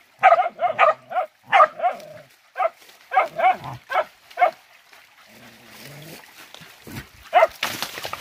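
Hunting dog barking in quick, excited high yelps, about a dozen in the first four and a half seconds, then one more near the end.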